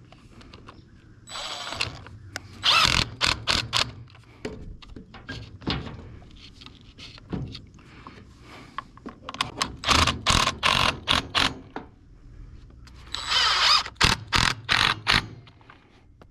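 Tools and parts being handled while a string trimmer is put back together: several clusters of quick clicks and knocks, with short bursts of rasping noise about a second in and again near the end.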